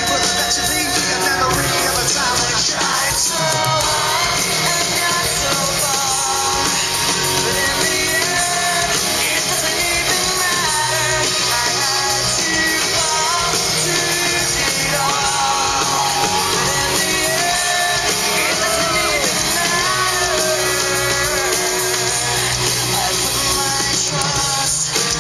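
Background music: a rock-style song with a singing voice over a steady band.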